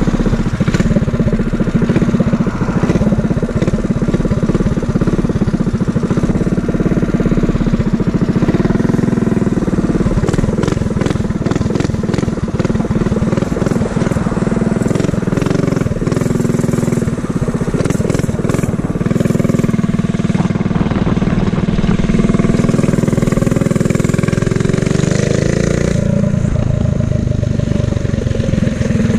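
Mini bike's small engine running steadily while being ridden, its pitch rising a couple of times as it speeds up.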